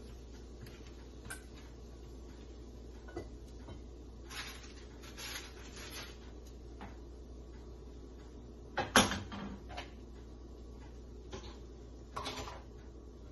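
Kitchen handling noises over a low steady hum: scattered light clicks and short rustles, and one sharp, louder knock about nine seconds in.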